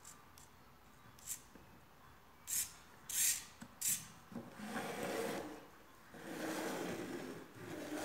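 A few short scratchy rubs, then the robot car's small yellow plastic gear motors whirring in two bursts of about a second and a half each.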